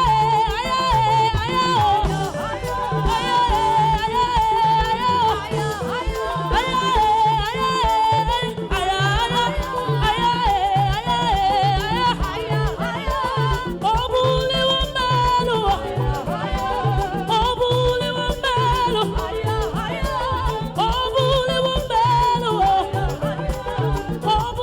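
Live praise-and-worship music from a church band: a steady, upbeat drum and bass beat under a wavering lead melody line, with no clear sung words.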